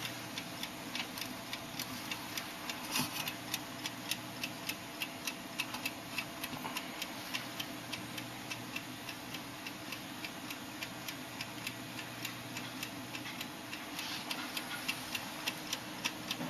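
Antique mechanical table clock ticking steadily, several ticks a second, at an even pace.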